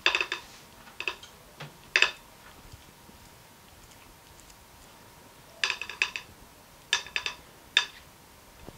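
Silicone spatula scraping and knocking against a cut-glass mixing bowl as cake batter is scraped out, in about six short clusters of quick sharp clicks.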